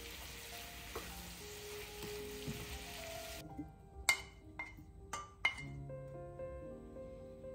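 Broccoli sizzling as it is stir-fried with a wooden spatula in a nonstick frying pan. The sizzle stops about three seconds in, followed by four sharp knocks as the broccoli is knocked out of the pan into a ceramic bowl.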